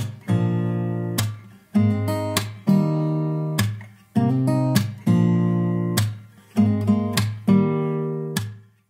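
Background music: an acoustic guitar strumming chords, each ringing out and fading before the next strum.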